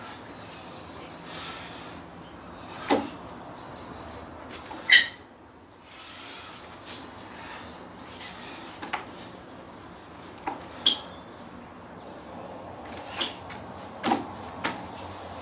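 Feet stepping, stamping and landing on wooden deck boards during a martial arts form: a series of sharp knocks and thuds, the loudest about three and five seconds in, over steady outdoor background noise with a few faint bird chirps.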